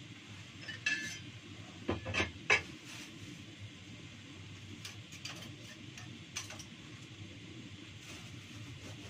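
Kitchenware being handled at a sink: a ringing metal clink about a second in, then three sharp knocks in quick succession, the last the loudest, and a few lighter taps later. A steady low hum runs underneath.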